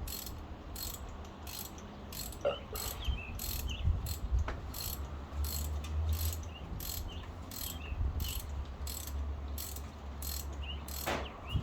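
Rapid, evenly spaced mechanical ticking, about two or three ticks a second, over a steady low hum.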